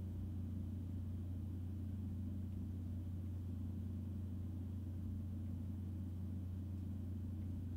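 Steady low hum with faint background noise, unchanging throughout.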